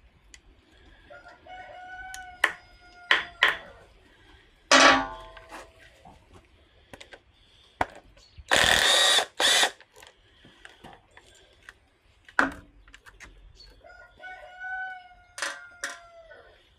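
A cordless driver runs in one hard burst of about a second roughly halfway, then a short second burst, working bolts on the mower's drive-unit cover. Metal tools clank sharply on and off around it. A rooster crows twice in the background, about a second in and again near the end.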